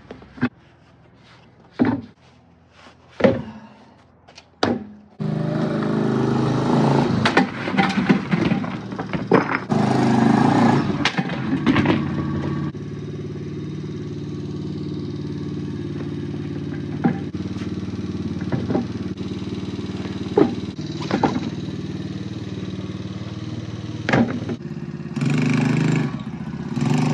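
A few scattered knocks, then the single-cylinder engine of a Chinese X-Pro 125 ATV comes on suddenly about five seconds in, revving in bursts for several seconds, then running steadily and revving again near the end.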